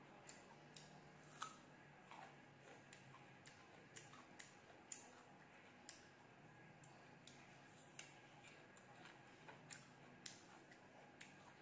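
Faint crisp crunching of raw Thai jujube (táo) being chewed: a string of short, sharp crunches, irregular, roughly one or two a second.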